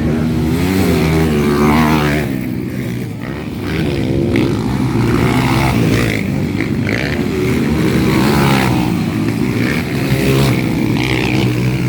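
200 cc motocross bike engines revving on the track, pitch rising and falling over and over as the riders open and close the throttle, with more than one engine heard at once.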